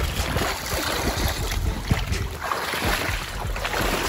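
Wind buffeting the microphone as a low rumble, over water sloshing and splashing around legs wading in the shallows.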